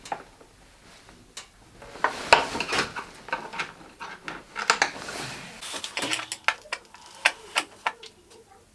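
Irregular clinks, knocks and clatter of small hard objects being handled and set down, busiest from about two seconds in to near the end.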